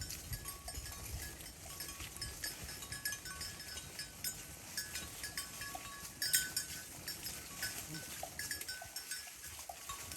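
Cowbells on grazing cattle clanking irregularly as the cows move, with a louder clank about six seconds in.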